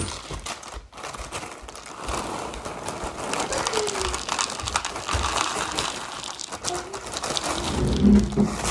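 A clear plastic bag crinkling and rustling as it is handled and a hand reaches into it, close to the microphone.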